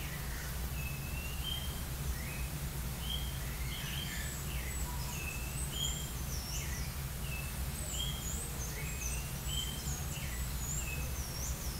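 Small birds chirping: a run of short notes rising and falling in pitch, with higher, squeakier notes joining in from about four seconds in, over a steady low machine hum.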